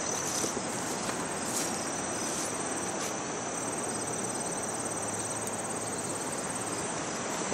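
Insects trilling steadily in a continuous high, finely pulsing buzz, over a steady hiss underneath.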